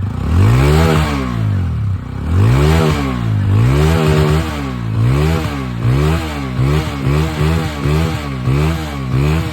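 TVS Apache RTR 160's single-cylinder engine being revved through its exhaust on a standing bike: a few longer revs rising and falling, then a quick run of short throttle blips about every half second, easing back toward idle near the end.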